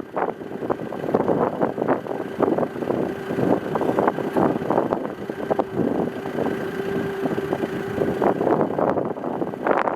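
Moderate wind buffeting the microphone in uneven gusts. A faint steady hum sits under it for a few seconds in the middle.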